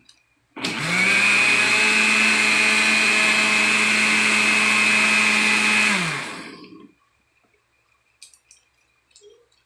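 Countertop electric blender switched on about half a second in, its motor whine rising to speed, then running steadily as it blends a fruit shake for about five seconds before it is switched off and winds down.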